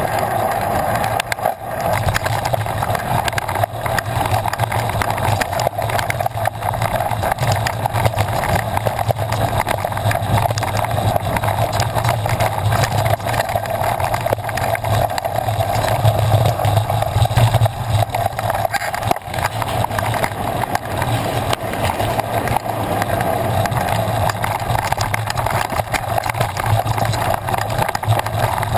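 A mountain bike ridden over a dusty dirt singletrack, heard through a bike-mounted action camera: steady wind and tyre noise with frequent small knocks and rattles as the bike jolts over the rough ground.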